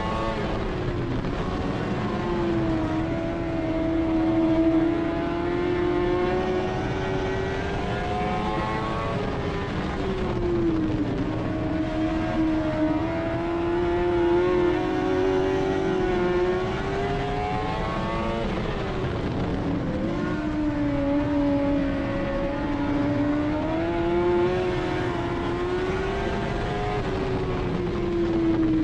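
Dirt-track race car engine at racing speed, heard from inside the car's cockpit, its revs climbing and dropping back several times.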